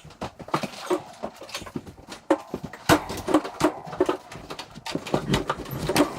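A heavy kitchen stove being dragged and shoved across a hardwood floor: a run of knocks, thumps and scrapes, with strained grunts and heavy breathing from the person moving it.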